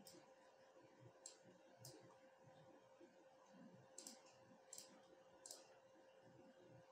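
Faint computer mouse clicks, six or so, each sharp and short and spaced about a second apart, over near silence with a faint steady hum.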